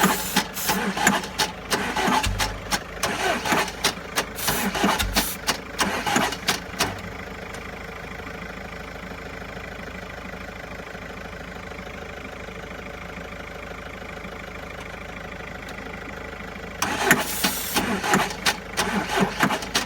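Starter cranking the Mercedes-Benz Sprinter's 2.2 CDI diesel engine with a rapid, uneven chuffing for about seven seconds, then stopping, and cranking again near the end; the engine does not catch, as the van won't start.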